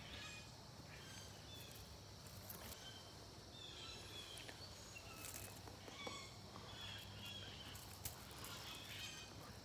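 Faint woodland ambience: quiet, scattered short bird chirps over a low steady hum.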